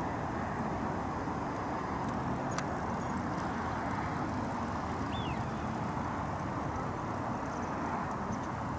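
Steady rumble of road traffic from a highway bridge, an even, unbroken background noise.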